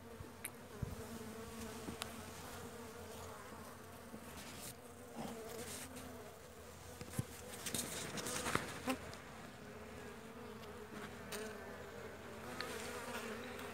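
Honeybees humming steadily around an open hive, with a few short knocks and scrapes from the wooden comb frames being handled about halfway through.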